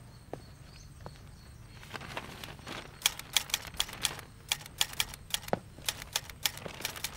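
Manual typewriter being typed on: irregular key strikes, sparse at first, then a quick run of clacks from about three seconds in.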